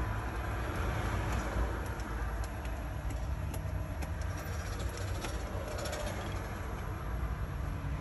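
Steady low vehicle rumble with a few faint light clicks, as a bolt at the top of a truck's dash panel is worked by hand.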